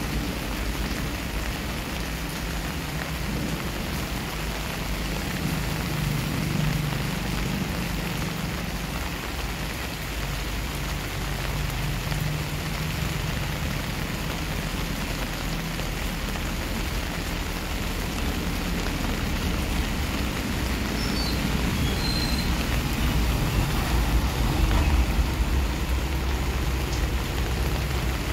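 Steady rain falling on a wet paved driveway and garden foliage, growing a little louder in the last third, with a low rumble underneath.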